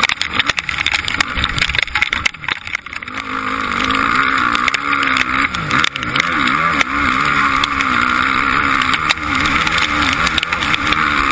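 Motocross bike engine running hard at speed, its pitch rising and falling with the throttle and gear changes. In the first few seconds a rapid ticking of impacts strikes the camera over a quieter engine.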